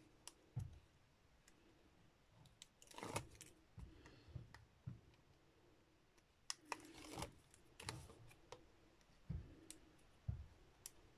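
Faint, scattered small clicks and short rustles of paper and tape being handled: the liner being picked and peeled off strips of double-sided tear-and-tape stuck along three sides of a card square.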